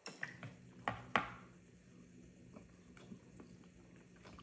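People eating thick instant black bean noodles with chopsticks: quiet slurping and chewing, with a few short, sharp clicks, two of them close together about a second in.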